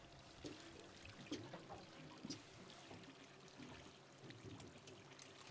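Faint water lapping and trickling against a boat's hull, with a few small scattered clicks.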